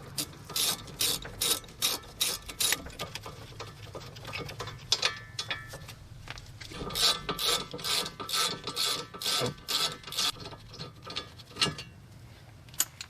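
Hand ratchet with a 13 mm socket clicking at about three clicks a second in two runs, with a pause in the middle, as the rear brake caliper bracket bolts are backed out.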